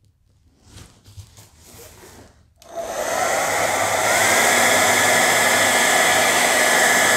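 Handheld hair dryer switched on about two and a half seconds in, then blowing steadily at full power, with a faint whine that rises a little as it comes up to speed. It is blowing wet poured acrylic paint across a canvas.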